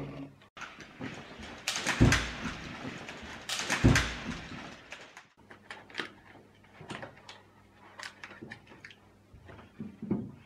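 A book and paper being handled on a school desk, with pages turned: two louder rustling thumps about two and four seconds in, then lighter rustles and small clicks.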